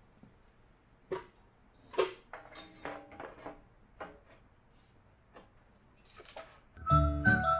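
Scattered knocks, clicks and light rattles of plastic electric radiator cooling fans being set down and shifted into place on an aluminium radiator. The strongest knock comes about two seconds in. Music starts near the end.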